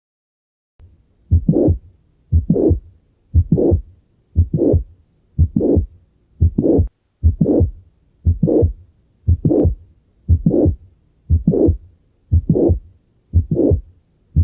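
Recorded heartbeat with a heart murmur. It starts about a second in and keeps a steady rhythm of about one beat a second.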